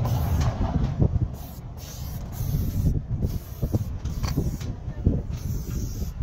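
Aerosol spray-paint can hissing in several short bursts, starting and stopping as paint is sprayed onto a wall, over a steady low rumble.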